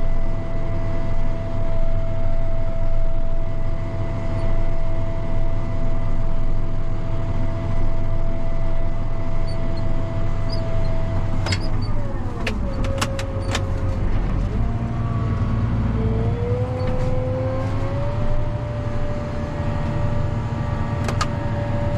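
Crop sprayer's engine running steadily, heard from inside the cab, with a low rumble and a steady whine. About halfway through there are a few sharp clicks, and the engine pitch drops as it slows, then climbs back up a few seconds later.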